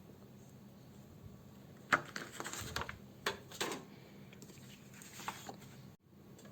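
Soft paper rustling and a few light taps as a paint-covered hand is pressed onto paper and lifted off. The sounds come as a short cluster about two seconds in, with one more near the end.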